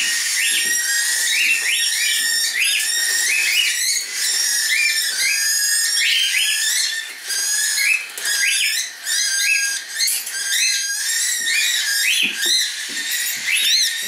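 Many cockatiels chirping and whistling at once: short high calls that rise and fall, overlapping without a break.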